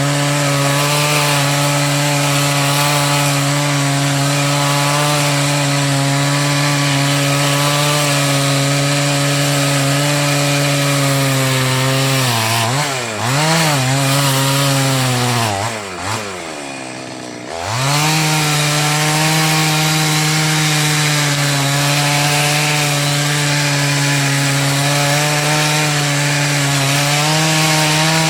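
Two-stroke chainsaw running at a steady high speed. About twelve seconds in its pitch wavers and dips several times, then falls low and quieter for a second or two before climbing back to full speed.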